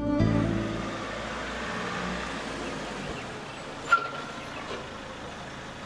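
A Mahindra Scorpio SUV's engine runs as a low rumble under street noise, and the rumble drops away about three seconds in. A brief high squeal comes just before four seconds in.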